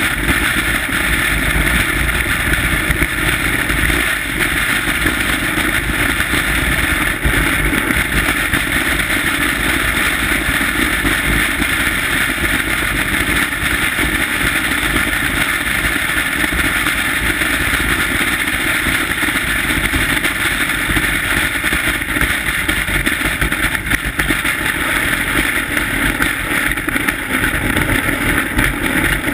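Steel runners of a 1939 bobsleigh running at speed down an iced bob track, a loud, steady rushing and rumbling noise mixed with wind.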